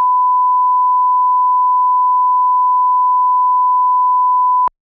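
Steady single-pitch test tone, the line-up tone that plays with colour bars, held unbroken and then cutting off suddenly near the end.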